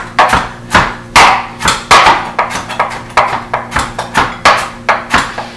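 Knife roughly chopping fresh cilantro, leaves and stems, on a plastic cutting board: a steady run of sharp knocks, about three a second.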